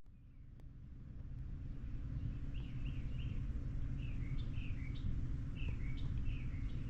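A small bird chirping, a run of short falling chirps in quick pairs, over a low steady background rumble that fades back in after an abrupt cut.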